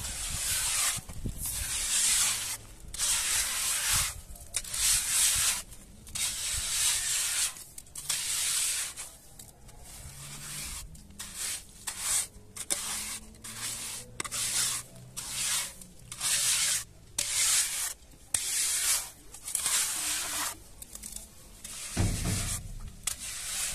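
Repeated rough scraping or rubbing strokes in an irregular rhythm, about one to two a second.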